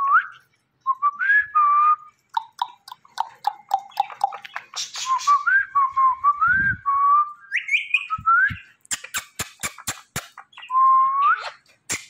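Indian ringneck parrot whistling a string of short notes, many sliding upward in pitch, with a run of sharp clicks near the end.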